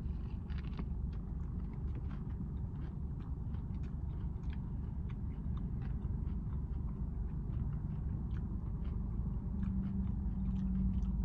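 A person chewing a mouthful of a chicken sandwich with a stiff bun: soft, irregular mouth clicks over a steady low rumble.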